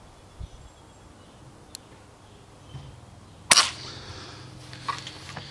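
A Crosman Legacy 1000 multi-pump air rifle fires a single BB at a coconut target at point-blank range: one sharp crack about three and a half seconds in, followed by a fainter click about a second later.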